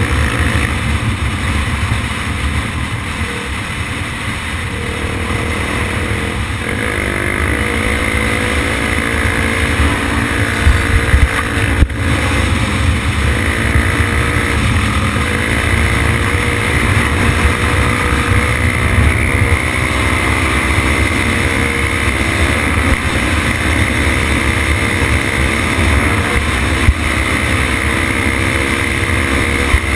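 Honda XR 250 Tornado's single-cylinder four-stroke engine pulling hard under way on a dirt track, its pitch climbing and dropping several times as it shifts and accelerates, over heavy wind buffeting on the microphone. A few sharp knocks about eleven to twelve seconds in.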